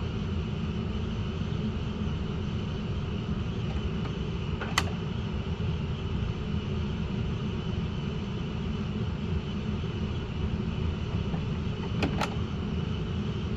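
Coleman Mach rooftop RV air conditioners running, a steady hum and rush of their fans. A sharp click about five seconds in and a double click about twelve seconds in.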